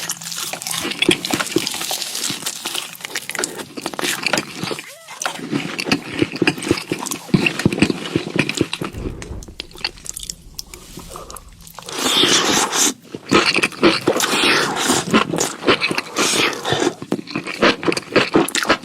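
Close-miked eating: crunching and chewing food, with dense crackly bites that get louder about two-thirds of the way in.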